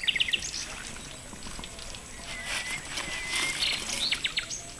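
Small birds chirping: short, quick calls in clusters, one at the start and another about three and a half seconds in, over a steady background hiss.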